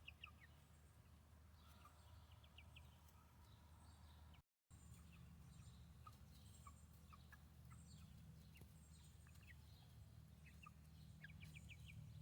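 Faint, short, high chirping calls from chickens, scattered through the quiet, with a quick cluster of them near the end, over a low steady hum.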